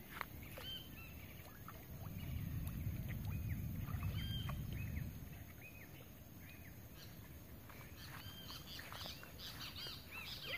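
Birds chirping over and over in short arching notes, busier near the end, with a stretch of low rumbling noise from about two to five seconds in.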